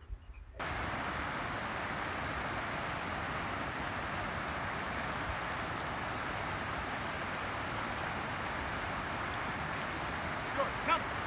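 Steady rush of a shallow stream running over granite rock, starting about half a second in. Two brief high chirps stand out near the end.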